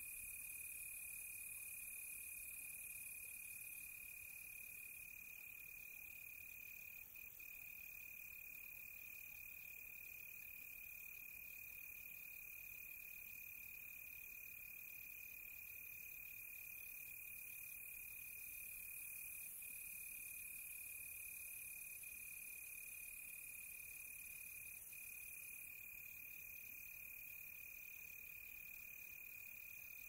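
Crickets singing in one steady, unbroken high-pitched trill, faint and continuous.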